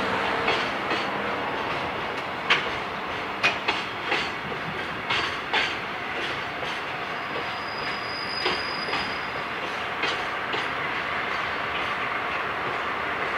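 A slow freight train being shunted by a DD51 diesel locomotive rolls past: steady rumble of container flat wagons with irregular clacks of wheels over rail joints, the loudest a few seconds in. A faint high wheel squeal about eight seconds in.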